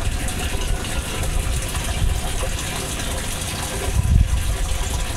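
Steady rush of water, the nutrient solution running through a hydroponic pipe system, with an uneven low rumble beneath it.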